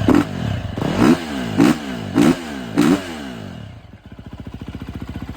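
Fuel-injected 350 cc four-stroke single-cylinder engine of a 2011 KTM 350 SX-F dirt bike, blipped quickly about five times, then dipping briefly and settling back into a steady idle. It is running cleanly after its clogged fuel injector, fuel tank and wrong spark plug were replaced.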